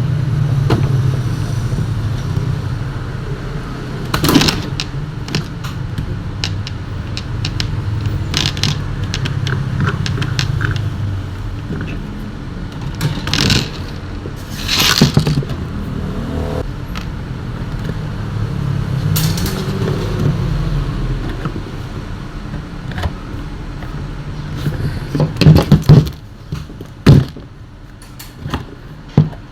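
Tools and metal fan parts clinking, knocking and scraping as an old table fan is taken apart, over a steady low rumble like passing traffic. The loudest knocks come near the end, after which the rumble drops away.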